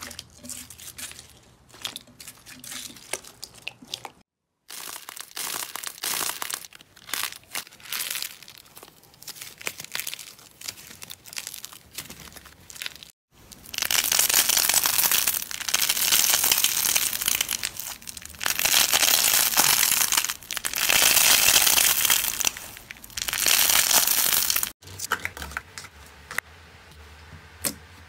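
Slime being squeezed and pressed by hand, giving crinkly, crunchy crackling full of small pops. In the middle come about five loud squeezes in a row, each a dense crackle lasting roughly two seconds, with sparser clicking before and after.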